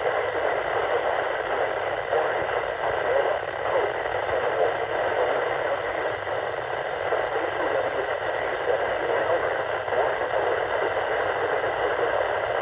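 Weather radio receiver giving a steady hiss of static: a weak, noisy broadcast signal.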